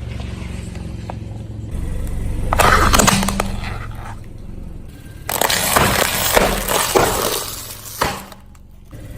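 Car tyre rolling over and crushing brittle objects, cracking and crunching. There is a short burst about three seconds in and a longer stretch of crackling from about five to eight seconds in, over the car engine's steady low hum.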